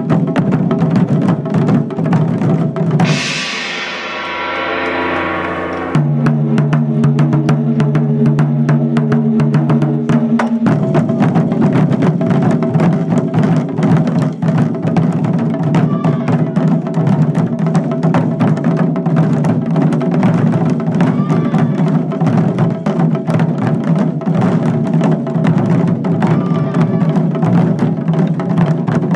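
Taiko drums played in fast, continuous rhythm. A held, low pitched tone sounds over the drumming for a few seconds early on.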